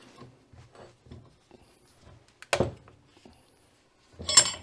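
Metal puller and press tool parts being handled on a workbench: faint clinks and scrapes, one sharp metal knock about two and a half seconds in, and a louder metal clatter near the end.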